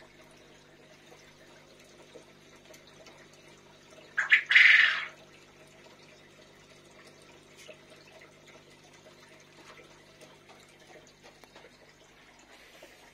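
Aquarium water trickling and bubbling in the tank's filter over a faint steady hum. About four seconds in there is a brief, much louder burst of noise, like a splash.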